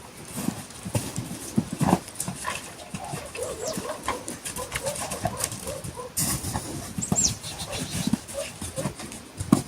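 Farmyard animal sounds: irregular knocking steps and short wavering animal calls, with a quick falling high chirp about seven seconds in.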